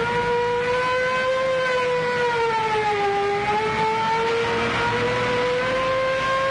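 Police car siren wailing, its pitch slowly dipping and rising again, over the rumble of car engines.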